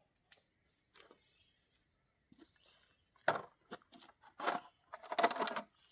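A few light knocks and scuffs in the second half, bunched together near the end, with quiet before them.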